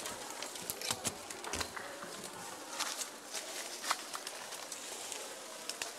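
Irregular crackling and rustling of dry leaf litter and bamboo as a man moves through bamboo forest, over a steady faint hiss of forest background.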